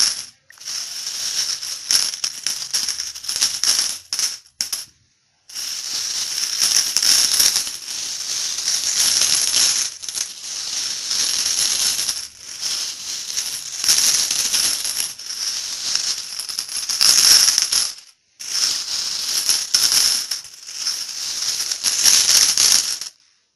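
Metal coins jingling and clinking together in a dense, continuous rattle, in several long runs broken by short pauses about half a second in, around five seconds in, and around eighteen seconds in.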